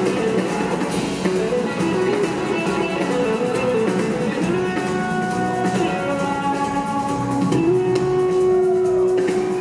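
Live rock band playing an instrumental jam: electric guitar lead with gliding, sliding notes over drums, settling on one long held note about three-quarters of the way through.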